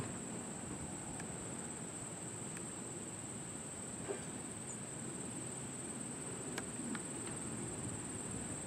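Steady high-pitched insect chorus, a constant trill, over a low, even rumble, with a few faint ticks.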